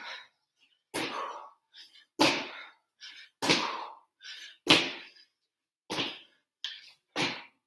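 Feet landing with a thud on a hard floor during repeated jump squats, about six landings, one every second or so, with softer knocks in between.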